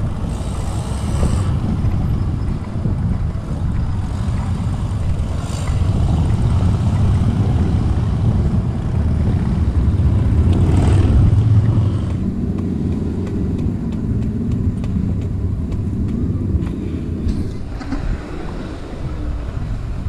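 Road traffic passing: a steady low rumble that swells into a louder pass-by about ten to twelve seconds in.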